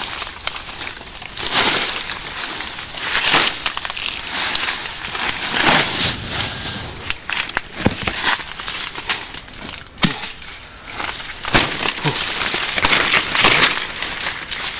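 Repeated crunching and rustling, in uneven bursts about every second or two, with a few sharp snaps among them.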